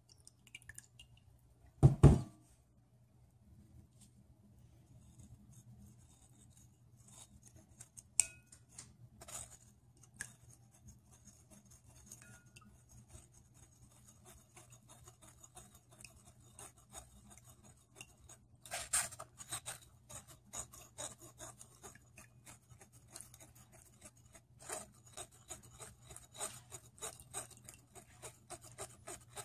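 A spoon scraping and clicking against a strainer as thick crab paste is stirred to drain its liquid, with one sharp knock about two seconds in.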